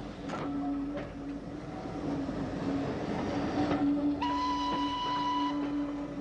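Steam railway sounds: a steady low tone throughout, a few sharp clanks in the first half, and a single locomotive whistle blast of about a second and a half, starting about four seconds in.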